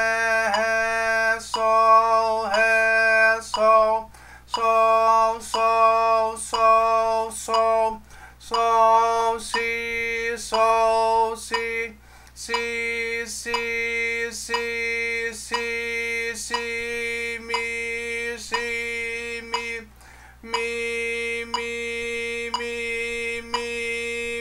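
A man's voice chanting note names in strict rhythm on one steady pitch, one held syllable per beat, pausing briefly every few seconds. This is metric reading of a sight-reading exercise: the note names sung in time on a single comfortable note.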